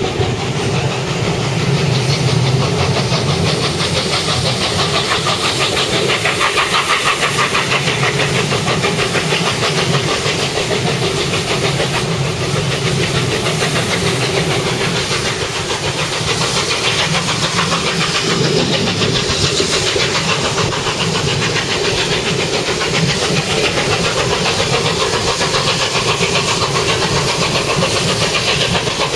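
Peppercorn A1 Pacific steam locomotive 60163 Tornado hauling its train at speed, a fast, even rhythm of exhaust beats over steady wheel and rail noise, heard from beside an open coach window.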